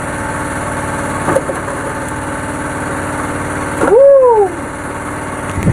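Steady drone of a fishing boat's engine running. About four seconds in, a short, loud call rises then falls in pitch.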